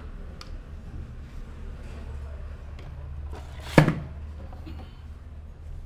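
A single loud, sharp slap from a masseur's hands during a percussive head massage, about four seconds in, with a few faint clicks before it and a steady low hum underneath.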